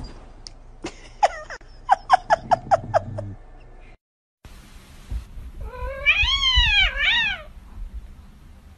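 A cat meowing: a quick run of about seven short, falling mews, then a long meow that rises and falls in pitch, followed by a shorter one.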